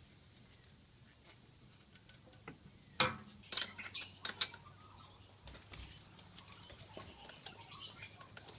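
Metal clinks and knocks as an intercooler is set in place on the engine and its fittings handled, a cluster of sharp strikes about three to four and a half seconds in, the loudest clank near the end of that run, then lighter rattles.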